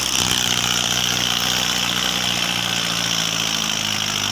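Mahindra Arjun tractor's diesel engine running steadily at a constant pitch.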